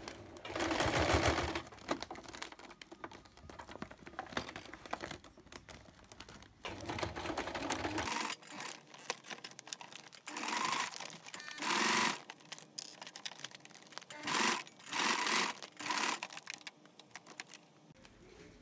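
Electric household sewing machine stitching clear PVC plastic sheet, running in several short bursts that stop and start.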